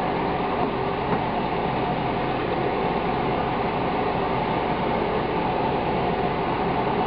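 A steady whirring hum with a hiss, like a kitchen fan running, unchanged throughout, while a thick spinach-and-yogurt curry is stirred in a pan on the stove; one light tap about a second in.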